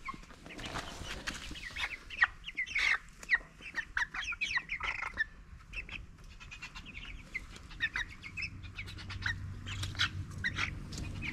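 A flock of four-week-old meat chickens in a brooder, peeping and chirping in many short, scattered calls.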